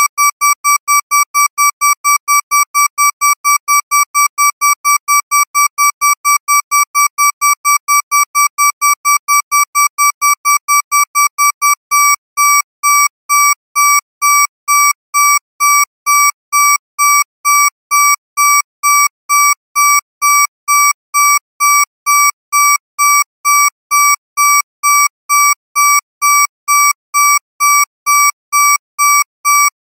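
Electronic alarm beeping: a shrill, steady-pitched beep repeated rapidly, changing about twelve seconds in to a slower beep at the same pitch.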